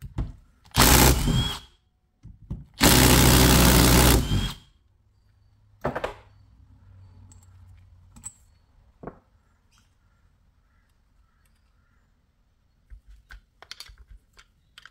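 Cordless power driver with a socket running in two bursts, the second longer, backing out the housing bolts of a Denso 7SEU17C A/C compressor. A sharp click follows, then a few light clicks of metal parts and tools being handled near the end.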